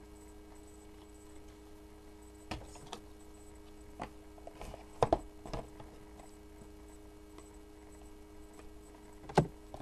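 Trading cards and a cardboard card box being handled: a few scattered light taps and clicks, the sharpest about five seconds in and again near the end, over a steady low hum.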